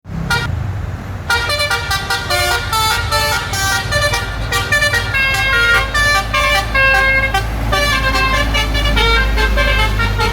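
Bus's multi-note 'telolet' air horn playing a quick melody, its notes changing several times a second, over the low rumble of the bus engine.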